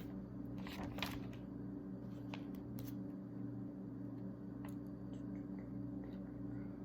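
Faint rustling and a few light clicks of small packets being handled, over a steady low hum.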